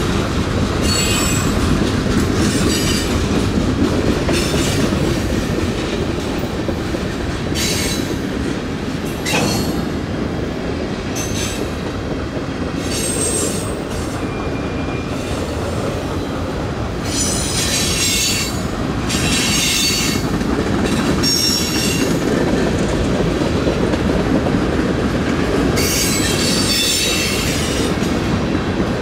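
Freight cars of a mixed-freight manifest train rolling past with a steady rumble of wheels on rail. Short, high-pitched wheel squeals come every few seconds, each lasting about a second, with a sharp click about nine seconds in.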